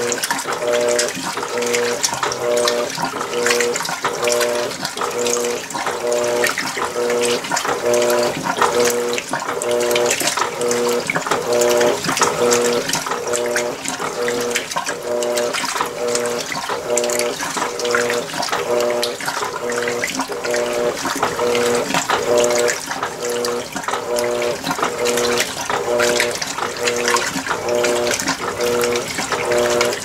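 Electrolux Premium Care LWI13 washing machine agitating a load: water sloshing and churning through the clothes over a motor hum that switches back and forth in a steady rhythm, about every three-quarters of a second.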